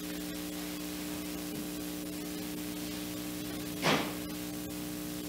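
Steady electrical hum with hiss, with one short soft sound about four seconds in.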